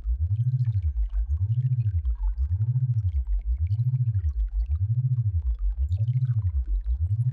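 Tinnitus-relief sound-therapy tone: a low, pure tone sweeping up and down in pitch about once a second, repeating evenly. Faint scattered crackles and a faint steady high tone sit underneath it.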